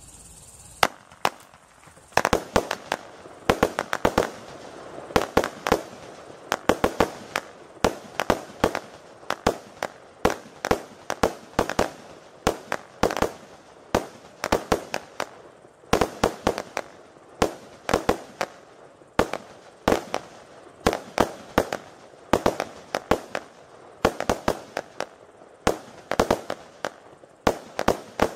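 Jorge 'Evolution' 100-shot, 20 mm firework battery firing: a rapid, uneven series of sharp bangs, roughly two or three a second, as its shells launch and burst, with a steady noisy wash between the bangs.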